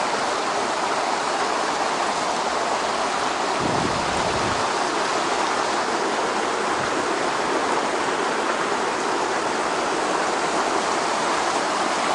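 Steady rush of flowing stream water, with a brief low rumble about four seconds in.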